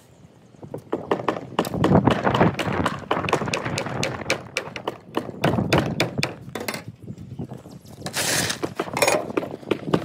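Claw hammer striking nails into wooden planks laid on plywood formwork: a fast run of sharp, repeated knocks. A short rushing noise comes about eight seconds in.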